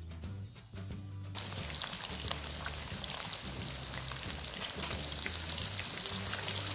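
Background music for the first second or so, then hot oil sizzling and crackling around a whole tilapia shallow-frying in a nonstick pan, starting abruptly and running steadily with quick pops, with the music's bass still faintly underneath.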